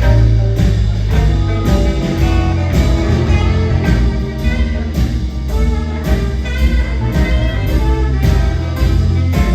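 A band playing live: drums keep a steady beat under a sustained bass and a lead melody line.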